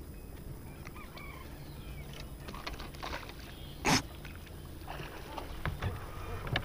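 A bass released by hand over the side of a boat, splashing once into the lake about four seconds in.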